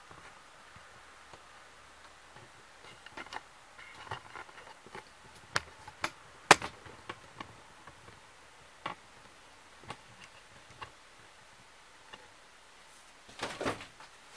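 Scattered light knocks and clicks inside a small, bare travel-trailer interior, over a faint room hiss, with the sharpest knock about six and a half seconds in and a short cluster of knocks near the end.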